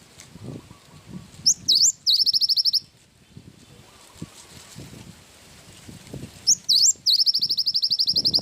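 Gelatik batu (cinereous tit) singing: two loud high phrases, each a couple of quick rising notes followed by a fast, even trill, the second trill longer than the first.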